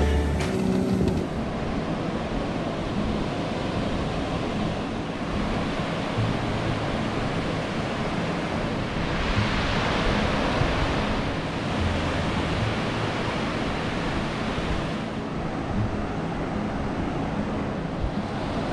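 Surf breaking and washing up a sandy beach, with wind on the microphone; the wash swells louder about halfway through. The tail of background music fades out in the first second or so.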